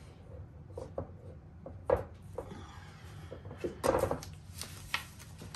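A footed tray rocking on a tabletop: a few sharp knocks as its glued-on feet tap the table, the loudest about two seconds in and a cluster around four seconds, with rubbing and sliding between. It wobbles because the middle foot keeps it from sitting flat.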